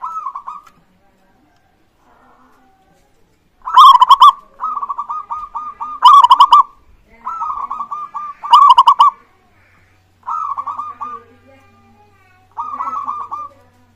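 Zebra dove (perkutut) singing its cooing song: short phrases of quick rolling coos. Three loud notes come about four, six and eight and a half seconds in, with softer phrases at the start and near the end.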